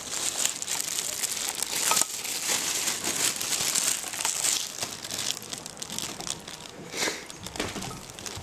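Close crinkling and rustling right at the microphone, dense and crackly, with a few soft knocks, as someone goes down steep wooden castle stairs.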